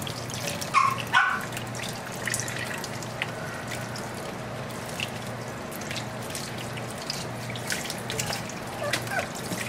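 Kitchen faucet running onto a wet six-week-old Aussiedoodle puppy in a stainless steel sink, with splashing and dripping as it is rinsed. The puppy gives two short cries about a second in.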